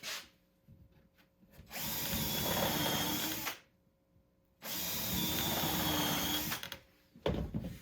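Power drill running into wood in two runs of about two seconds each, then a short knock near the end.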